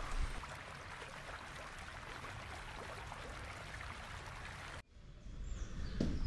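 Steady rush of a nearby water stream, which cuts off abruptly about five seconds in. Quieter ambience follows, with a soft thump near the end.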